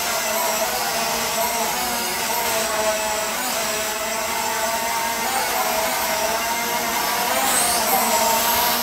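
Holy Stone HS440 quadcopter hovering, its four brushed motors and propellers humming steadily with a slightly wavering pitch. It is quiet for a drone with brushed motors.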